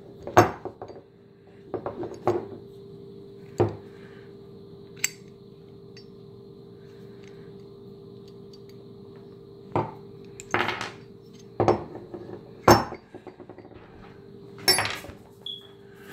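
Nickel boron-coated Fail Zero bolt carrier group being taken apart by hand: about ten scattered sharp metallic clicks and clinks as its pins and parts are handled and set down on a wooden table.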